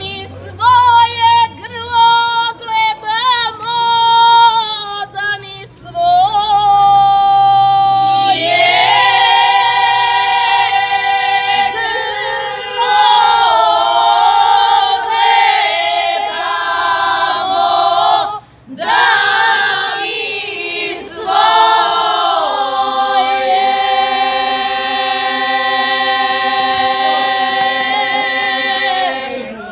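A group of women singing a traditional folk song a cappella. One voice leads alone with ornamented phrases, and the rest of the group joins in about eight seconds in. They pause briefly near the middle and end on a long held chord.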